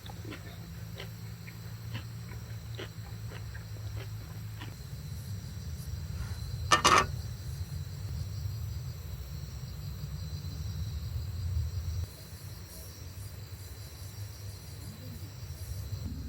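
Campfire crackling: scattered soft pops over a low steady rumble, with one sharper crack about seven seconds in.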